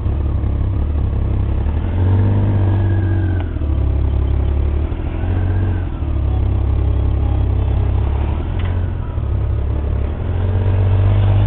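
Honda GL1500 Gold Wing's flat-six engine running, its note rising and falling a few times as the throttle is blipped.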